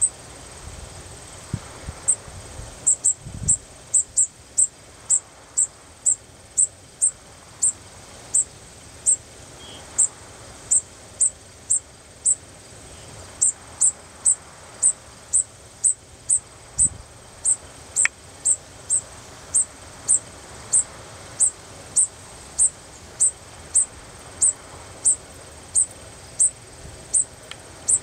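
Fledgling sparrow giving a high, thin begging call over and over, short slightly falling notes about twice a second, starting a couple of seconds in.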